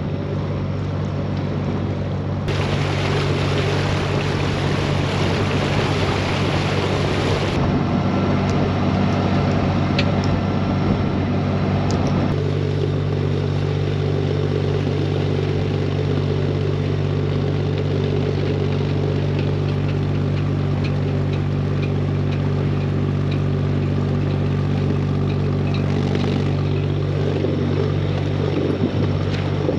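Narrowboat engine running steadily under way, a low even hum. For a few seconds near the start a loud rushing hiss lies over it.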